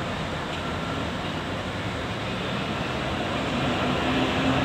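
Steady rumble of city street traffic and vehicle engines, with a low engine hum that grows a little louder near the end.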